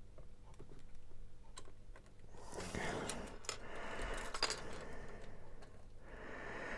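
Small clicks and rattles of hard plastic toy parts being handled and fitted together, with a longer, denser stretch of rustling noise from about two and a half seconds in.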